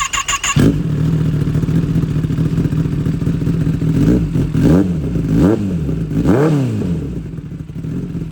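Kawasaki ZX-10R inline-four with an aftermarket full-system exhaust idling, then blipped four times in quick succession between about four and seven seconds in, each rev rising sharply and dropping back to idle.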